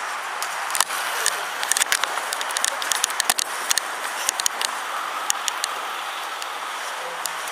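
Steady rushing background noise with a flurry of irregular sharp clicks and knocks from about a second in to around five seconds, as from a handheld camera being jostled while carried.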